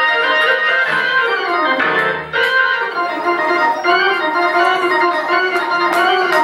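Church organ playing slow, held chords, with low bass notes coming in under it at moments.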